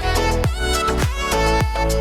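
Background music: an upbeat track with a bowed-string melody over a steady kick-drum beat, about two beats a second.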